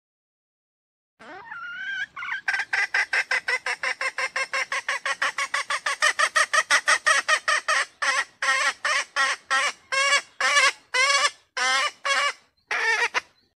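Female red junglefowl (wild hen) calling: a rising note about a second in, then a fast run of short notes, about seven a second, that slows after the middle into a few spaced-out notes before stopping near the end.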